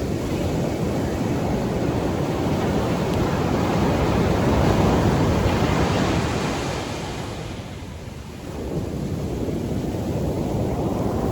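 Ocean surf washing up on a beach, swelling to a peak about halfway through, falling away, then building again with the next wave, with wind rumbling on the microphone.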